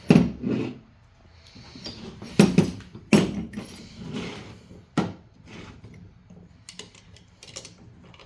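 A few sharp metal knocks and clanks, then lighter clicks, from a stiletto switchblade and tools being handled at a bench vise.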